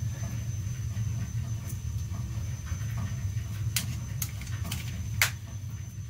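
Bradford White gas water heater's burner running with a low steady rumble, with a few sharp ticks in the second half, the loudest about five seconds in.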